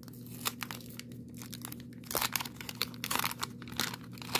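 Waxed-paper wrapper of a 1990 Donruss baseball card pack being torn open and crinkled by hand: an irregular run of crackles and tearing, loudest about two and three seconds in.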